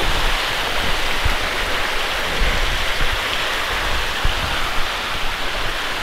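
Mountain stream running over rocks close by: a steady, loud rush of water.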